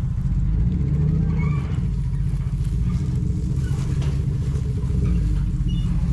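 Motor vehicle engine running steadily at low speed: an even low rumble.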